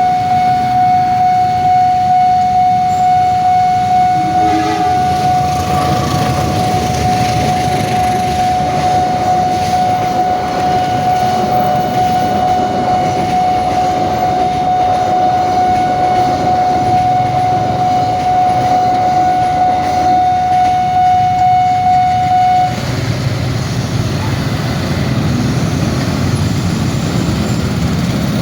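Railway level-crossing alarm sounding one steady, unbroken tone while a train runs through with a rumbling, clattering roll. The alarm cuts off suddenly about 23 seconds in, and the train noise carries on.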